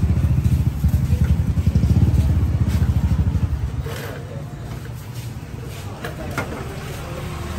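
A motorcycle engine idling close by with a fast, low putter, fading away about four seconds in. A few light clicks and clinks follow near the end.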